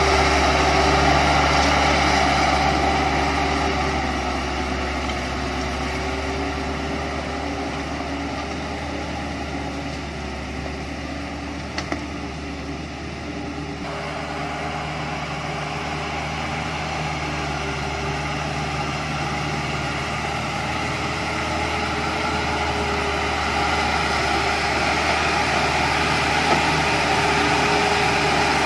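Turbocharged diesel engine of a Chiến Thắng light truck loaded with logs, running steadily under load as it crawls through deep mud. It fades as the truck pulls away, then grows louder again as the truck approaches.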